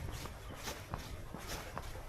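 A runner's footsteps striking the path at about three strides a second, with a steady low wind rumble on the microphone.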